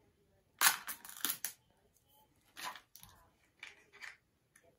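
Small plastic toy packaging crinkling and tearing as it is opened by hand: a loud cluster of crackles about half a second in, then shorter crinkles twice more.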